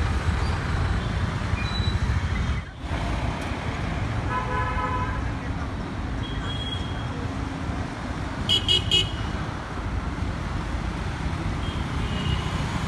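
Busy city road traffic: motorbikes, scooters and cars running past. A horn sounds about four and a half seconds in, and three quick high-pitched horn toots come about nine seconds in.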